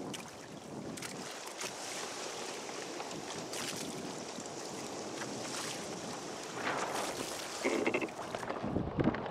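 Water rushing and splashing along the hull of a sailing kayak under way through choppy sea, with wind buffeting the microphone. The splashing grows louder and choppier, with knocks, in the last few seconds.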